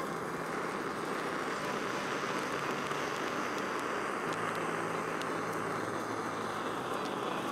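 Handheld gas torch flame blowing with a steady hiss, caramelising the sugar topping of a crème brûlée.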